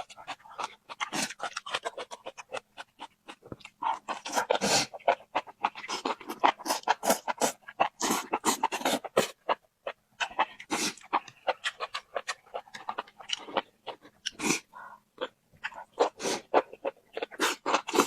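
Close-miked eating: wet chewing and lip-smacking, a quick irregular run of smacks and clicks that comes in denser clusters with short lulls between.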